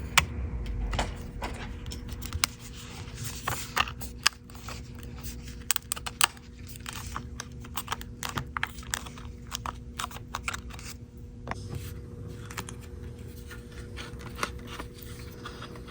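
Irregular small clicks and taps of metal tools against an iPhone's parts during a bench repair, over a faint steady hum.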